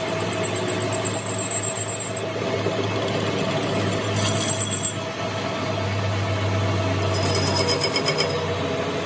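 A machine running steadily, with a constant low hum.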